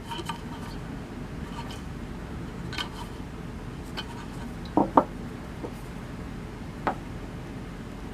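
Light clicks and taps from small objects being handled, with a pair of louder knocks about five seconds in, over a steady low hum.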